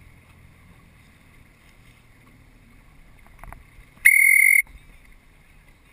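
A single loud whistle blast about four seconds in: one steady high note lasting about half a second, over a low background rumble of wind and the motor boat.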